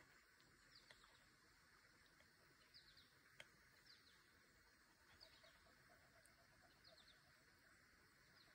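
Near silence, with faint high chirps from a distant bird: short runs of quick falling notes about every second or so. There is a single faint tick about three and a half seconds in.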